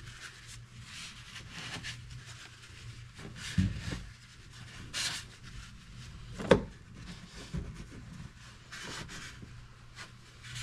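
Shop towel rubbing and wiping around the fuel pump opening of a fuel tank, with soft scuffs and handling knocks; a sharp knock about six and a half seconds in is the loudest sound.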